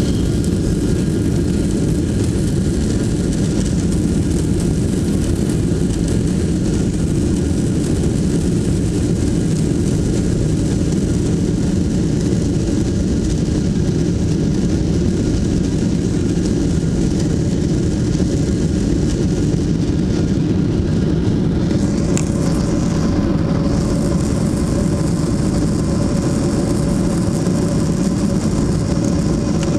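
Engine and rolling noise inside the cabin of a four-engined Boeing 747-400: a steady low rumble while it taxis. About two-thirds of the way through, a steady higher engine tone and more hiss come in as thrust builds for the takeoff roll.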